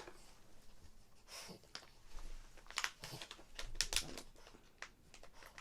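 Mystery pin packaging being opened by hand: irregular clicks, taps and crinkles as the box and its wrapper are handled and torn open.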